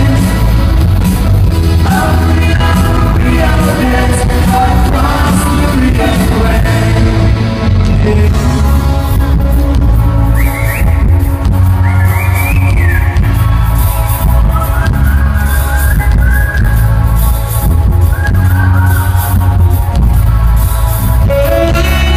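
Pop-rock band playing with singing over a heavy, steady bass line; a pitched line bends up and down in several short phrases in the second half.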